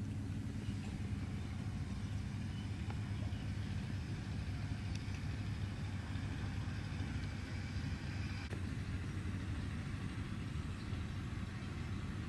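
Steady low mechanical hum, even and unbroken, like a running motor or idling engine.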